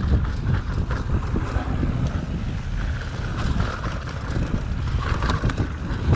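Wind buffeting the microphone of a camera on a mountain bike riding down dirt singletrack, with the rumble of the tyres over the trail and a few sharp clicks and rattles from the bike over bumps.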